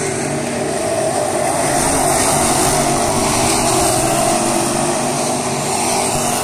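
A pack of Crate-class dirt track race cars running at race speed, several V8 engines sounding together in a steady, loud drone of overlapping engine notes.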